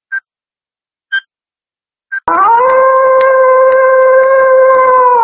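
Three short electronic countdown beeps, one a second, then a person howling like a wolf: one long, steady howl that dips slightly in pitch at the end.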